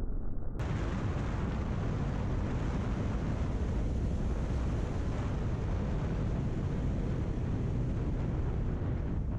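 Wind rushing over an action-camera microphone on a moving motorcycle, with engine and road noise underneath. It sounds muffled for the first half-second, then steady.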